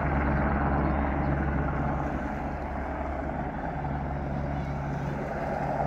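Firefighting helicopter with a water bucket slung beneath it, its rotor and turbine running steadily with a rapid low beat.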